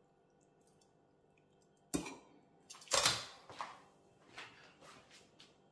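Metal kitchen tongs clacking and tapping against the wok and serving bowl while stir-fried noodles are dished up. There is a sharp clack about two seconds in and the loudest knock about a second later, then a few lighter clicks.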